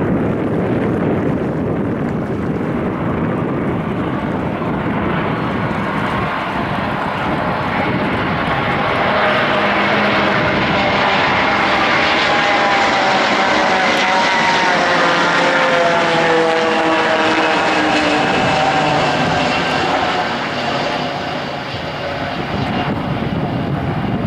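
Airbus A321 jet engines on a landing approach, passing by: a loud, broad rumble with a whine that slides down in pitch as the airliner goes past, easing off about twenty-one seconds in.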